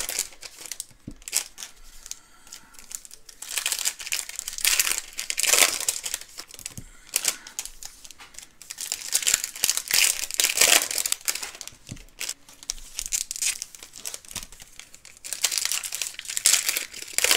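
Plastic wrapping crinkling and tearing in three bouts as a sealed box of trading cards is unwrapped.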